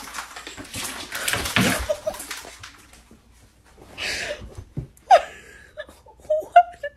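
Rustling and a few light knocks, then a person laughing in short bursts over the last two seconds.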